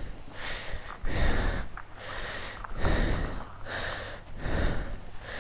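Air rushing over a helmet microphone in repeated gusts, each lasting about half a second to a second, over a low rumble.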